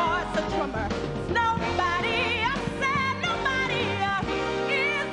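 A female vocalist belting long held notes with wide vibrato over a live band accompaniment.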